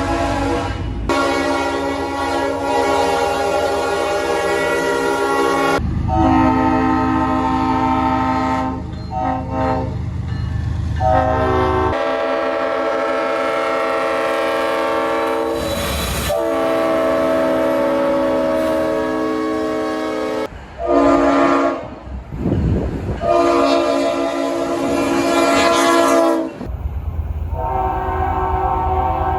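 Leslie RS5T five-chime locomotive air horns sounding a series of long and short blasts, each a loud multi-note chord, with breaks between blasts.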